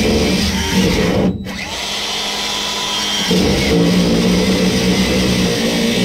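Cordless DeWalt grinder running and cutting through a rusted steel exhaust pipe, its motor a steady whine. It breaks off briefly about a second and a half in, then bites hard again a little after three seconds.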